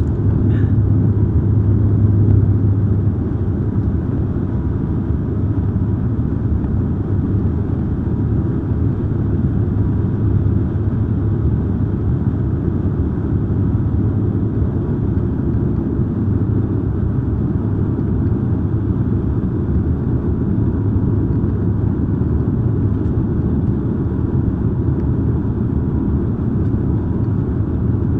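Cabin noise inside a Bombardier Dash 8 Q400 turboprop on approach with the landing gear down: a steady drone of its Pratt & Whitney PW150A engines and six-bladed propellers, with a strong low hum that eases a little about three seconds in.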